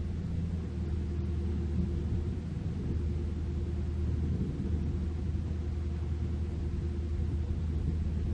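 Steady low drone of heavy diesel machinery running: an excavator and a dump truck at a roadworks site.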